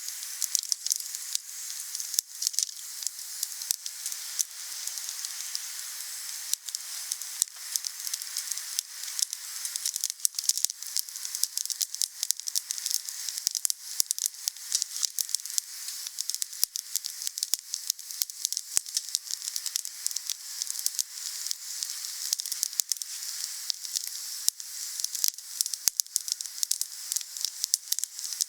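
Wood fire burning: a steady high hiss with many sharp crackles and pops scattered irregularly throughout.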